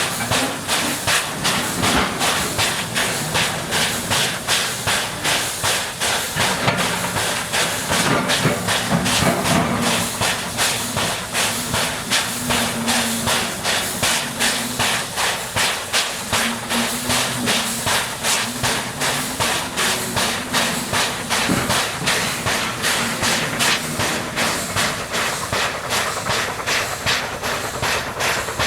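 JS-class 2-8-2 steam locomotive working under steam, its exhaust chuffing in a steady, even beat over a continuous hiss of steam.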